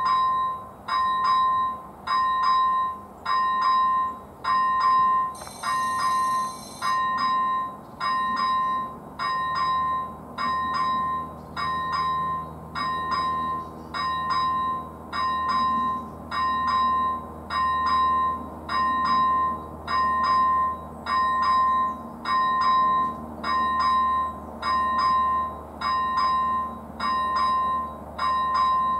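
Electronic level-crossing bell (ZV-01 on AŽD 71 warning lights) ringing, one short electronic ding about every second, warning that a train is approaching.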